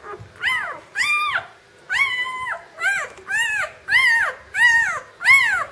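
Newborn German Shepherd puppies crying: a quick run of high, thin squealing cries, each rising and then falling in pitch, about eight or nine of them.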